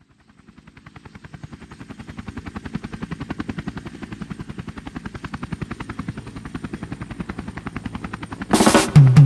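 Song intro: a rapid, even pulsing like a helicopter's rotor chop, about nine beats a second, fades in over the first few seconds and then holds steady. Near the end a loud crash-like swell leads into the song.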